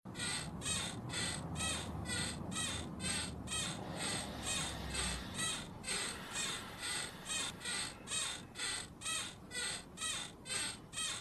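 Rhythmic squeaky creaking, nearly three creaks a second, steady throughout. A low hum under it stops about five seconds in.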